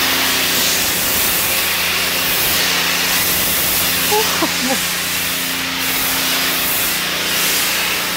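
Pressure-washer foam cannon spraying snow foam onto a car: a steady, loud hiss of spray with a steady low hum underneath.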